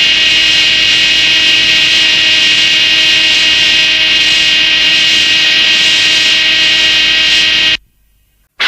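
Tokusatsu sound effect: a loud, steady jet-like hissing rush with a low steady hum beneath it. It cuts off sharply near the end.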